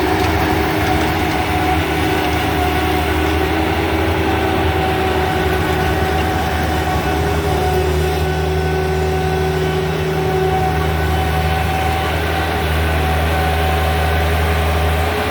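Engine of a bucket-loading construction machine running at a steady speed, a loud, even hum that holds its pitch throughout.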